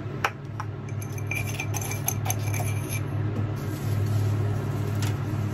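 Salt canister handled and its wooden lid set down with a sharp clink, then a few light ticks and clinks as salt is shaken out over fuki (butterbur) stalks on a cutting board.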